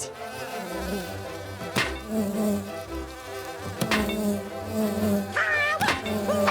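Cartoon buzzing of robot bees, dense and continuous, broken by three sharp clicks, with soft background music underneath.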